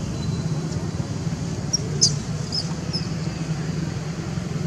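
Steady low outdoor rumble, with a few short high chirps about two to three seconds in.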